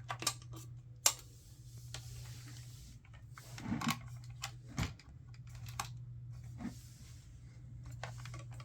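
Clicks and knocks from handling a Roborock H6 cordless stick vacuum whose power trigger is pressed but whose motor does not start, over a steady low hum. The loudest click comes about a second in, with duller knocks a few seconds later.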